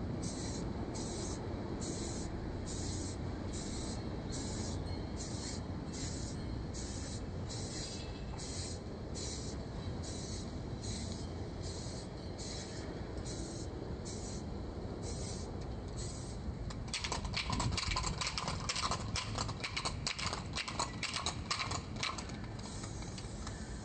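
Aerosol spray-paint can hissing in short, regular bursts, a little under twice a second. From about 17 seconds in, a louder stretch of rapid clicking and rattling runs for about five seconds.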